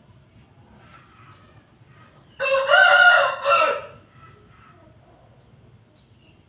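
A rooster crows once, loud and about a second and a half long, starting a little over two seconds in. Fainter calls come before and after it.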